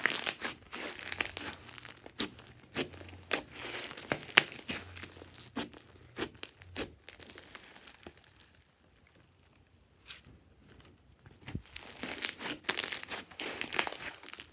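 Hands kneading and stretching glossy slime studded with small beads: a run of sticky crackles and popping clicks, thinning out to a quieter spell about eight seconds in before picking up again.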